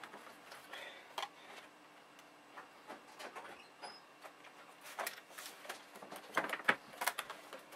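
Plastic laptop case being handled and pressed together, with scattered light clicks and taps as its halves snap back onto their clips, and a quick run of sharper clicks near the end.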